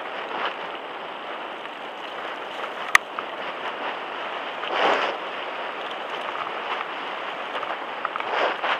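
Mountain bike rolling fast downhill on a dirt and gravel track: a steady rush of tyre noise and wind on the handlebar-mounted camera's microphone, with a sharp click about three seconds in and louder surges near five seconds and near the end.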